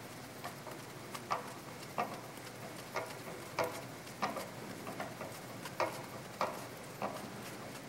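A small drill bit boring a set-screw hole into the hub of a brass gear, heard as a faint background with a string of light ticks about every half second to second.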